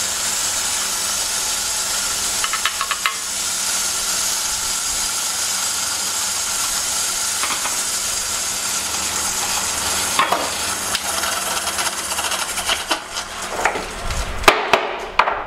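Ceramic disc pulverizer running steadily, a hissing, grinding noise over a low motor hum, as graphite ore is put through it again. It cuts out about fourteen seconds in, followed by a few knocks as the sieve pans are handled.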